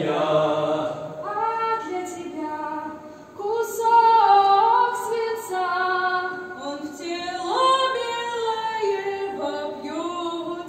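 A woman singing solo and unaccompanied, holding long notes and sliding between pitches.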